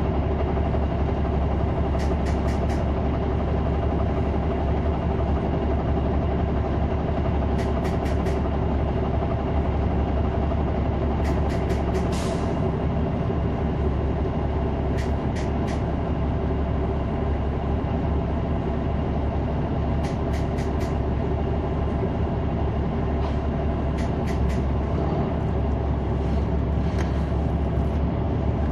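Caterpillar C9 ACERT diesel engine of a 2003 Neoplan AN459 articulated bus, heard from on board: a steady engine hum. Small groups of short clicks come every few seconds.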